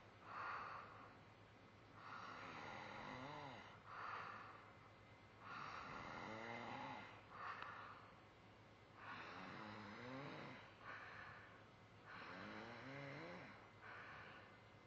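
Faint, regular snoring: about four slow breaths, each a longer snore with a wavering pitch followed by a short puff.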